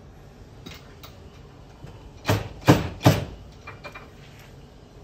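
Three sharp, loud clacks a little under half a second apart, about two seconds in, with a few fainter clicks in the first second.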